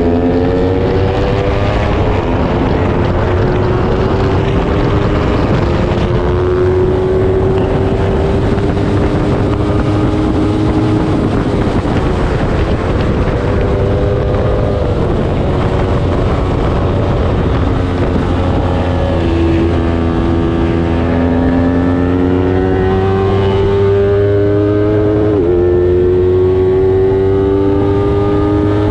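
A small-displacement road-racing motorcycle engine run hard at high revs. Its note climbs slowly under throttle and drops sharply twice near the end as it shifts up.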